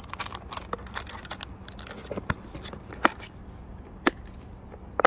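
Thin plastic packaging bag crinkling as it is pressed into a hard plastic carrying case. This is followed by four sharp plastic clicks about a second apart as the case lid is shut and its latches snap closed.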